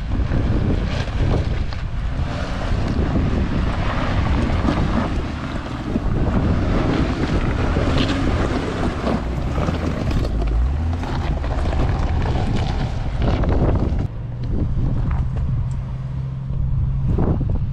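A vehicle driving, its engine rumble nearly buried under heavy wind buffeting on the microphone. About fourteen seconds in the wind noise eases a little and a steady low engine hum comes through.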